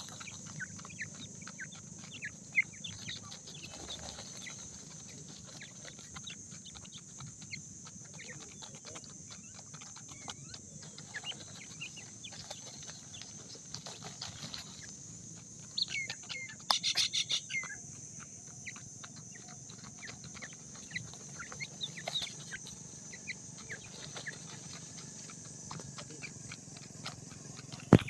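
Grey francolin chicks calling with short, high peeps scattered throughout. About sixteen seconds in comes a brief cluster of sharp clicks and scuffles as they shift in the dry soil.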